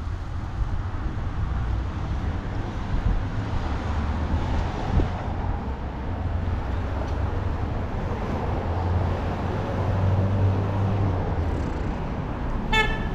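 Street traffic going by with a steady low rumble. Near the end comes one short toot, like a car horn.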